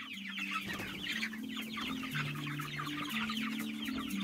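A flock of young broiler chicks peeping, many short high falling peeps overlapping without a break, over low held tones that change pitch every second or so.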